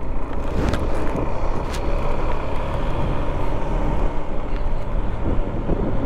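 Motorcycle engine running while riding over an unpaved road, with steady road and wind noise and a few short knocks.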